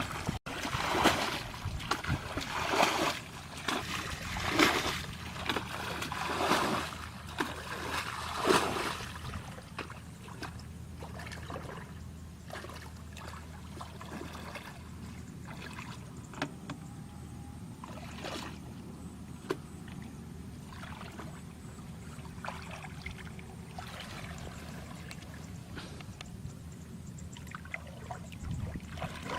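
Water splashing in a series of loud bursts for about nine seconds, then quieter sloshing and trickling with a few sharp knocks.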